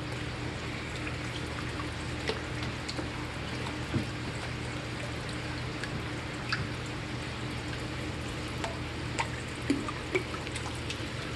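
Water steadily pouring and trickling into a turtle tank, with a low steady hum and a few faint splashes and clicks.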